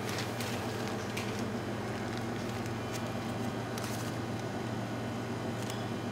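A steady low hum, with faint squelching and a few small clicks as soft pumpkin gnocchi dough is squeezed out of a plastic piping bag onto parchment paper.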